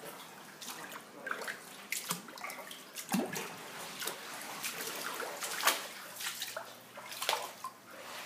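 Flood water in a house splashing and trickling, with irregular splashes every second or so.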